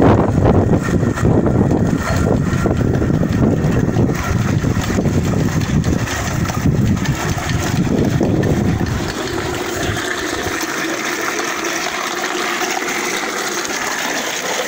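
A hand-turned coffee pulper working a load of coffee cherries makes a low, rough rumble. About ten seconds in, this gives way to a steady rush of water running out of the pulper's chute.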